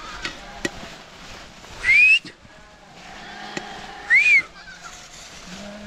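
A shepherd's whistled herding calls to the flock: two short, loud whistles, one rising about two seconds in and one rising then falling about four seconds in.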